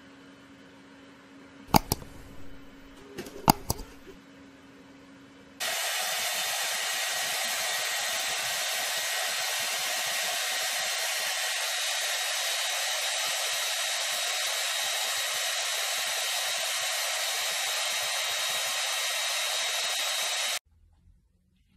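Handheld hair dryer running steadily for about fifteen seconds, a loud even rush with a faint high whine, starting and stopping abruptly. Before it, a faint steady hum with a few sharp taps about two and three and a half seconds in.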